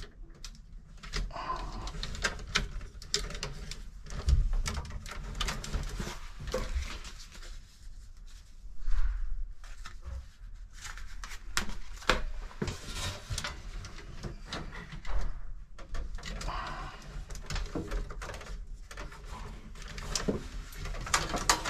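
Irregular clicks, taps and rustles of hands handling wires inside an electrical breaker panel and peeling numbered wire-marker labels from a booklet.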